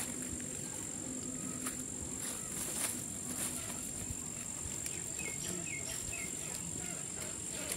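Steady, high-pitched insect drone holding one unbroken tone, with faint rustles and light ticks from hands picking through dry leaf litter. Three short chirps come a little past the middle.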